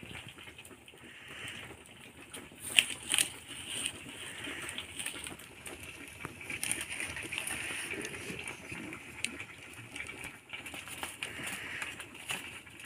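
Open wood fire crackling under bamboo cooking tubes, with a steady hiss and scattered sharp pops, two of the loudest about three seconds in.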